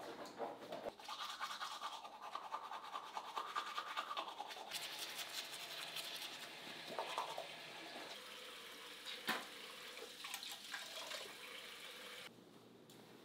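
Teeth being brushed with a toothbrush: rapid scrubbing strokes that stop abruptly near the end.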